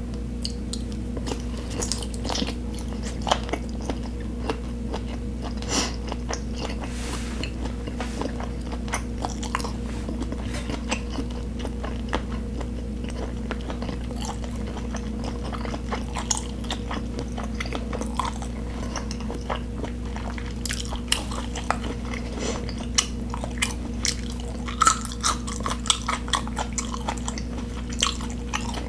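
Close-miked chewing and biting: many short, wet mouth clicks and crunches, coming thicker in the last several seconds, over a steady low electrical hum.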